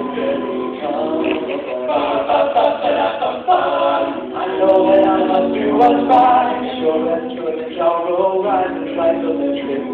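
Male a cappella vocal group singing in close harmony, voices only with no instruments, in a thin cellphone-quality recording.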